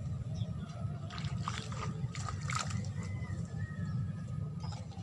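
Water sloshing and splashing in a short flurry of strokes a little over a second in, over a steady low rumble.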